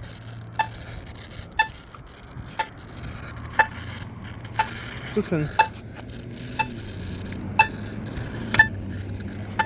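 Polara EN2 accessible pedestrian signal pushbutton ticking its locator tone about once a second, through a failing speaker that puts a steady static hiss under the ticks.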